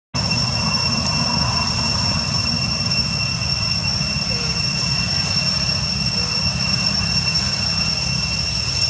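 Steady outdoor background drone: a constant high-pitched whine over a low rumble, cutting in abruptly and holding even.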